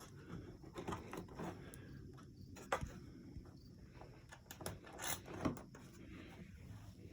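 Faint, scattered clicks and light knocks of hands and small parts being handled while the four-wheeler's gas tank is fitted and its mounting screws set in place.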